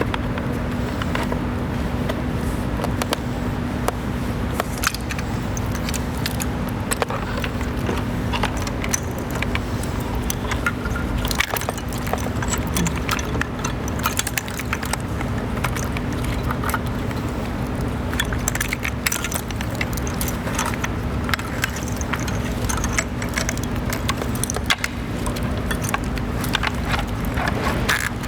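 Scattered light clicks and rattles of a wiring harness and its plastic connectors being handled and routed along a motorcycle's frame, over a steady low hum.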